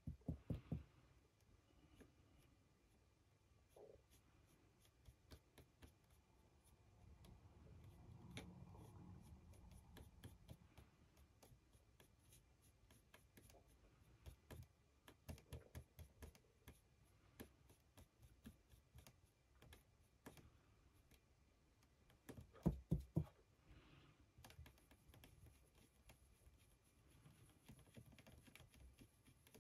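Quiet handling sounds from painting a resin figure with a fine brush: faint scattered clicks and taps of brush and fingers on the model. A few louder knocks come near the start and again about three-quarters of the way through.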